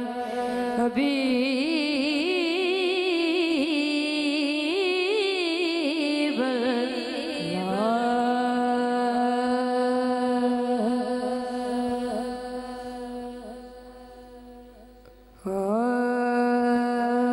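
A boy's voice singing a naat without words: a long wavering melisma, then a steady held note that slowly fades out, and a new held note that starts suddenly near the end.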